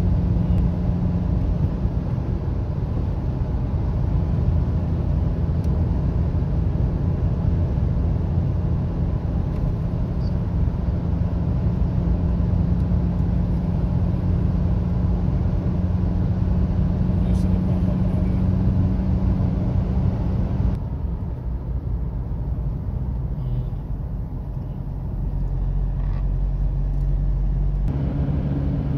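Car interior noise while cruising at highway speed: a steady engine drone with tyre and road rumble. The high hiss drops away about two-thirds of the way through, and the pitch of the drone changes near the end.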